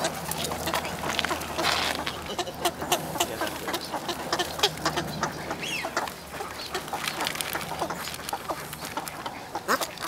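A flock of ducks calling at close range: short quacks and squawks, some falling in pitch, over a constant scatter of short clicks and scratches.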